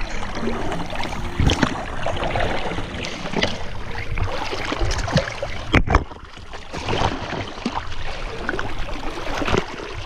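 Seawater splashing and slapping around a camera held at the waterline beside a rowing boat's hull, with a sharp knock about six seconds in.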